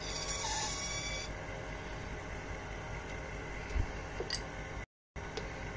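A hand-held graver cutting a small yellow bead turning on a cast mini bead lathe, heard as a hissing scrape for about the first second. After that the lathe and a dust-extraction vacuum run steadily, with a couple of faint ticks. The sound drops out for a moment near the end.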